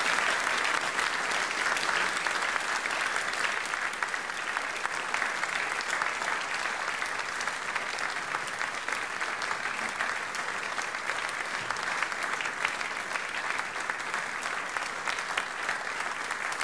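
A large audience applauding: dense, sustained clapping that eases off a little toward the end.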